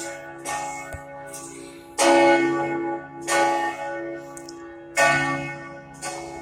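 Cathedral church bell ringing, struck every second or so with each stroke ringing on into the next; the strongest strokes come about two and five seconds in.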